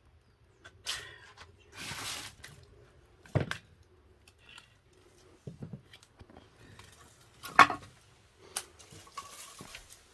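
Irregular knocks, clinks and scrapes of hard objects being handled, several sharp strikes a second or two apart, the loudest about three-quarters of the way through.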